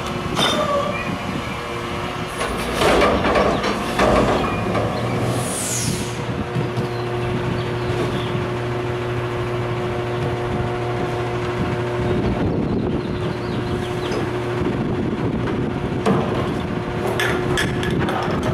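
Front-loader garbage truck's diesel engine idling steadily, with clattering knocks of plastic trash cans and bags being handled, loudest about three and four seconds in, and a few more near the end.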